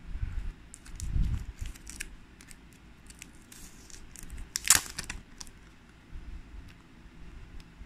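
Packaging being handled and opened by hand: scattered rustling and clicks with low handling bumps, and one loud crinkling tear a little past halfway.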